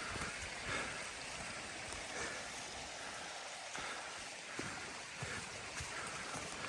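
Steady rushing of a mountain stream, with a few faint thuds.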